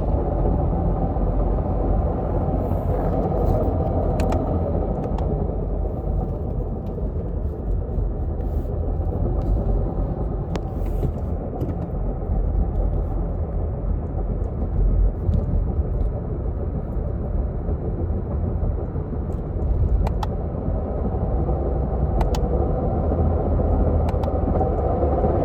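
A 2017 Subaru Impreza driving, its TR580 Lineartronic CVT giving a steady grinding rumble and whine. The noise is the sign of a collapsed secondary pulley (variator) bearing in the transmission.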